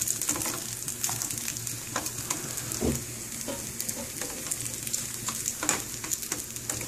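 Diced sausage sizzling and crackling in hot oil in a frying pan, stirred with a plastic spatula that scrapes and knocks against the pan now and then, most strongly about three seconds in and again near the end.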